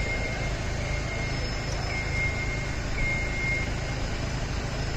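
Carry deck crane's engine running steadily, with a short warning beep about once a second that stops about three and a half seconds in.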